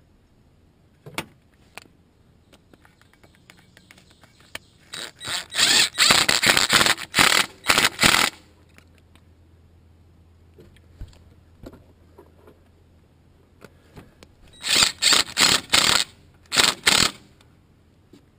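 Ridgid cordless impact driver tightening fuel-rail bolts. It hammers in two rapid rattling runs of two to three seconds each, the second about nine seconds after the first.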